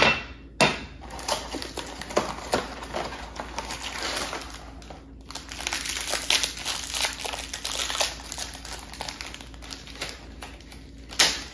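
Thin plastic cookie sleeve crinkling and crackling as it is opened and the cookies are worked out of it, with a short pause about five seconds in. A hard knock on the countertop right at the start.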